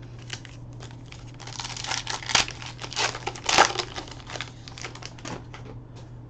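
Trading-card pack's foil wrapper crinkling and being torn open by hand, with the loudest rips about halfway through.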